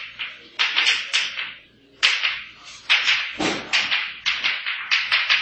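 Chalk writing on a blackboard: an irregular run of sharp taps and short scrapes, several strokes a second.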